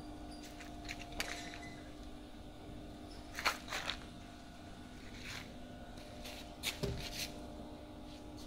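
Room background with a steady low hum and a few short clicks and rustles, one pair about three and a half seconds in and another near seven seconds.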